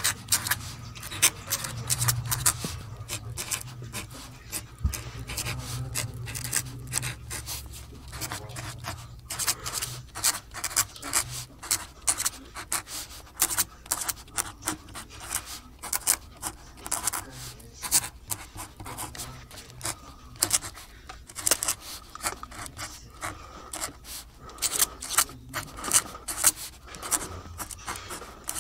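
Cardboard being handled: many short, irregular rubbing and scraping clicks, with a low hum under the first several seconds.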